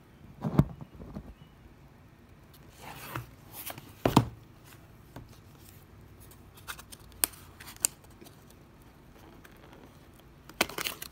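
A cardboard kit box being handled and opened: two dull knocks, the first about half a second in and the louder one about four seconds in, with cardboard sliding and scraping, a couple of light clicks, and a burst of rustling near the end.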